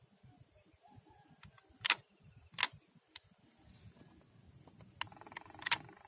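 Steady high-pitched insect chirring with three sharp clicks. A fast, even buzz starts about five seconds in.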